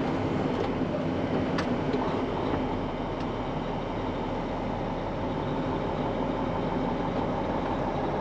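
Grain truck engine running steadily at low speed, heard from inside the cab while the truck is slowly manoeuvred, with a few faint clicks.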